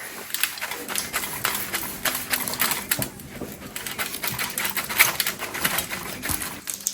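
Rapid, irregular crackling and clicking as food is handled and plated on a kitchen counter.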